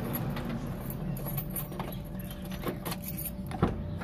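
A set of keys jingling and clicking as they are handled, with a sharper clack about three and a half seconds in, over a steady low hum.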